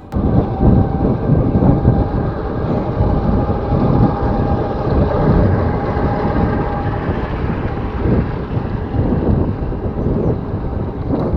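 Wind buffeting an action camera's microphone during a bicycle ride: loud, steady rumbling noise, with a faint steady whine for the first seven seconds or so.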